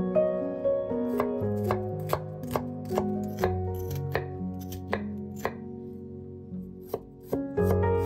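Chef's knife cutting a peeled onion on a wooden cutting board: crisp strikes of the blade on the board, about two to three a second, with a pause past the middle before the chopping picks up again. Soft background music plays throughout.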